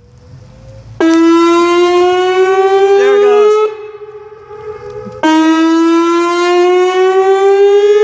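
Pole-mounted outdoor warning siren sounding during its weekly test: a loud, rich tone that cuts in about a second in, creeps slowly upward in pitch, and falls away sharply a little under three seconds later, then comes back just past five seconds with the same slow rise.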